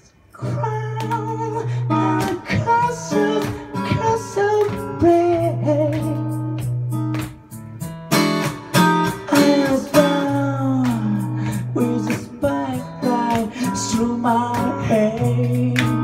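Acoustic guitar strummed and picked live, with a voice singing over it; the music comes in about half a second in.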